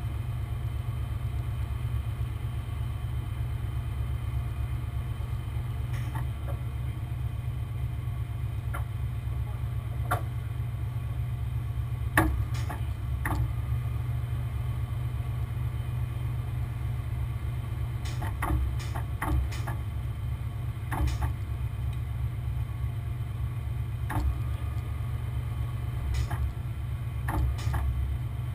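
A heavy tow truck's engine running steadily at idle, with scattered short knocks and clanks over it, the loudest about twelve seconds in.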